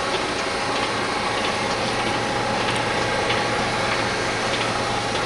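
Euro 6 DAF truck diesel engine idling steadily and quietly, with a light regular ticking over the hum; the ticking is taken to be normal for this engine.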